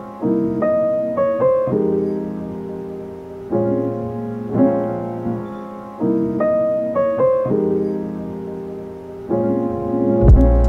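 Background piano music, a phrase of struck chords and notes that repeats about every three seconds. A deep low sound comes in near the end.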